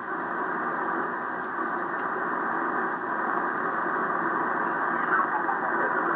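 Drake R-4C tube receiver's audio on lower sideband: steady static hiss of band noise as it is tuned down across the 40-meter band, with no station coming through clearly.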